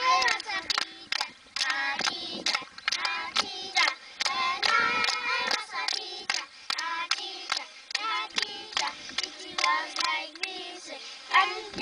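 A group of schoolchildren singing a song together, clapping their hands in time, about two to three claps a second.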